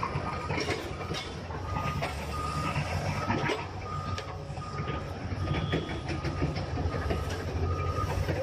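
Vehicle reversing alarm beeping steadily, about three beeps every two seconds, over an engine running low, with scattered clanks.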